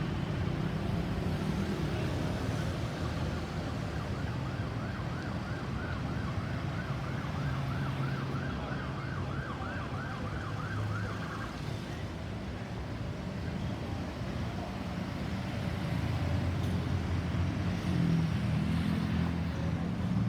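An emergency vehicle's siren in a fast yelp, its pitch rising and falling several times a second. It starts a few seconds in and cuts off a little past halfway, over the steady rumble of road traffic, which is the louder sound and grows louder near the end.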